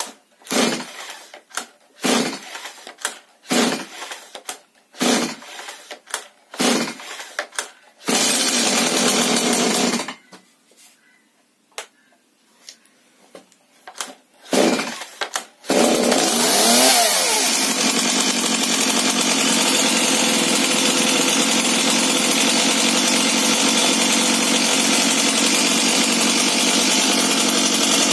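Stihl MS 170 two-stroke chainsaw cold-started on choke: a series of starter-rope pulls about a second and a half apart, then the engine fires and runs for about two seconds before dying. After a pause, one more pull and it starts, swings up and down in pitch, then keeps running steadily.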